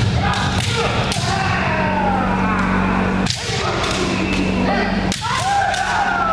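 Group kendo sparring: bamboo shinai cracking against armour and feet stamping on the wooden gym floor, mixed with many kiai shouts. The shouts are long and fall in pitch, and a few strikes stand out, sharpest about three and five seconds in, all echoing in the large hall.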